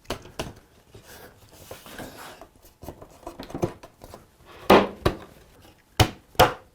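Quartersawn white oak chair parts being handled and knocked together at their joints: light wooden clunks, then three sharp knocks near the end.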